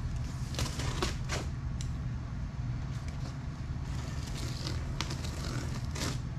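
A box cutter slitting the packing tape on a cardboard box, a few short scrapes and rustles, over a steady low hum.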